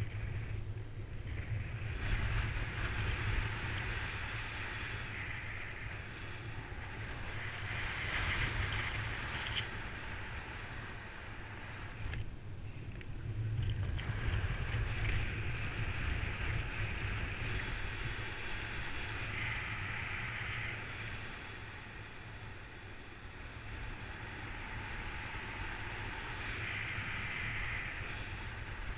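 Wind noise from airflow over the microphone in paraglider flight: a steady low rumble with a hissing rush that swells and fades every few seconds.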